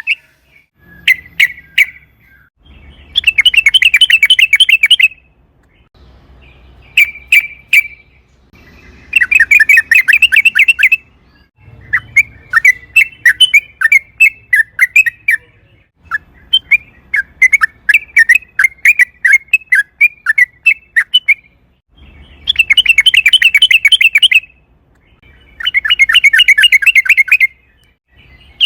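Yellow-vented bulbul (trucukan) singing: repeated phrases of rapid, bubbly chattering notes, each phrase lasting about two to five seconds, with short pauses and a few brief single notes between them.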